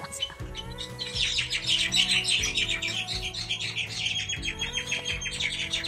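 Many birds chirping in a fast, continuous chatter that starts about a second in, over background music with held low notes.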